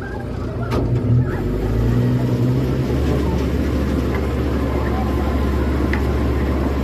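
A small passenger boat's engine running with a low, steady hum as the boat comes alongside a pontoon to berth. The hum grows louder about three seconds in and holds there. There are a couple of short knocks about a second in.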